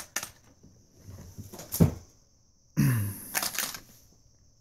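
Clear plastic lure package being handled and turned in the hand: a couple of clicks, then two short stretches of rustling and knocking, about a second in and again near three seconds.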